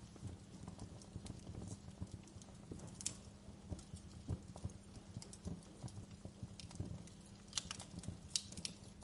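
Fire crackling: irregular small pops and snaps, with a few sharper snaps about three seconds in and again near the end, over a low steady hum.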